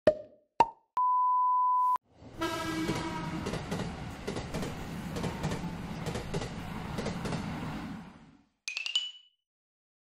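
A train-passing sound effect: a horn-like tone as it begins, then about six seconds of rumble and rail clatter that fades away. Before it come two quick pops and a one-second steady beep; a short rising chime sounds near the end.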